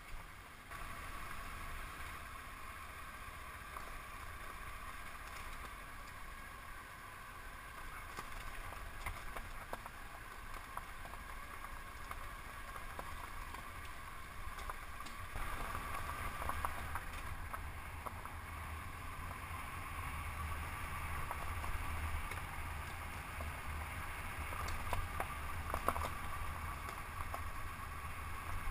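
Honda CB500X's parallel-twin engine running steadily while the motorcycle rides a loose gravel road, mixed with tyre and road noise. It grows louder about halfway through as the bike picks up speed.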